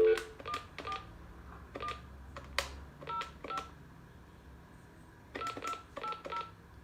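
Phone keypad tones as a number is dialed: the dial tone cuts off and about ten short two-tone beeps follow in uneven groups, each with a light tap.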